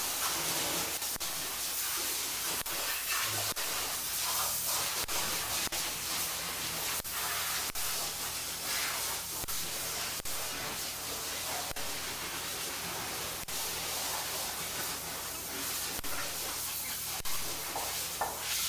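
Steady hiss with faint, evenly spaced ticks about every three-quarters of a second, and a low steady hum that sets in a few seconds in.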